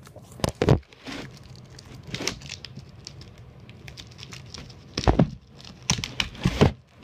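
Plastic wrap crinkling and tearing as a shrink-wrapped stack of cardboard game tiles is opened, with several loud bumps and knocks of handling, the loudest about half a second in, around five seconds in and near the end.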